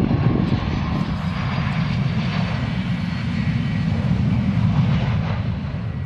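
Business jet's engines running: a steady low noise with a faint whine above it.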